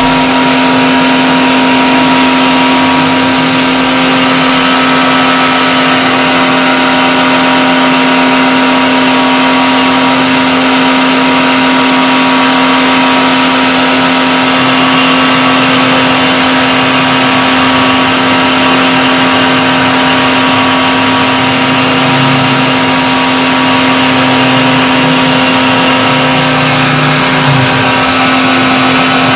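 Electric pressure washer running steadily: a constant motor-and-pump hum, with the water jet hissing against the aluminium fins of an air-conditioner coil.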